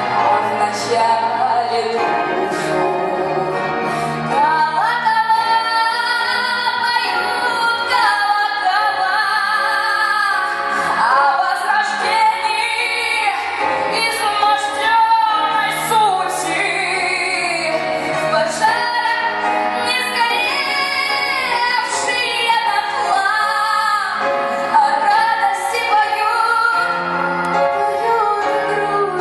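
Female voice singing a melodic song with vibrato over an instrumental backing with sustained low notes.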